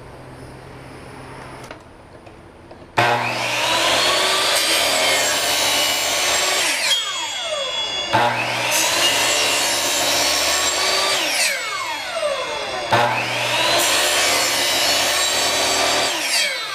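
Electric power saw cutting PVC pipe three times: each time the motor starts abruptly, runs with a whine through the cut for about four seconds, then winds down with falling pitch once released.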